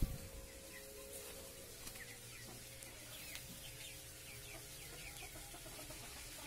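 A single thump at the very start, then a chicken giving a run of short, high, falling peeps, about three a second.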